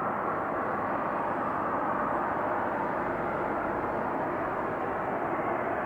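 Loud, steady roar like several jet engines running, from an unseen source with no aircraft overhead. It holds constant rather than building and fading like a passing plane.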